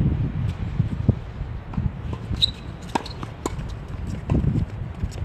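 Doubles tennis point on a hard court: scattered sharp pops of racket strikes and ball bounces, with players' footsteps, over a steady low rumble.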